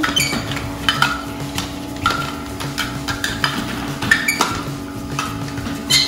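Battery toy vacuum cleaners running with a steady motor hum, with light clattering taps about once a second.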